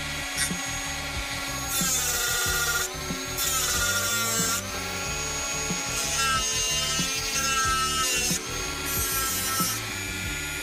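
Rotary tool on a flexible shaft drilling into thin stainless steel. It comes in several bursts of a second or two, with a high whine that rises and falls in pitch as the bit bites.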